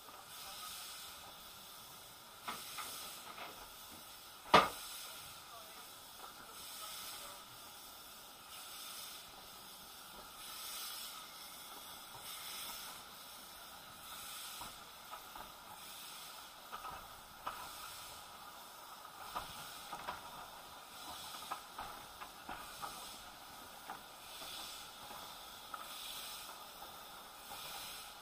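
Steady hiss of an Isle of Man Steam Railway steam train, heard from inside a carriage, with a gentle pulsing and scattered light clicks. One sharp knock comes about four and a half seconds in.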